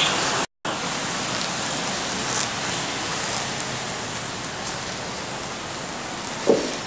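Steady, rain-like hiss of water running and dripping in an underground brick tunnel, with a brief cut-out about half a second in and a soft knock near the end.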